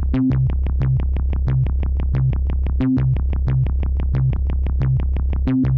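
Electronic background music with a steady pulse of about five beats a second over a held bass line, cutting off suddenly near the end.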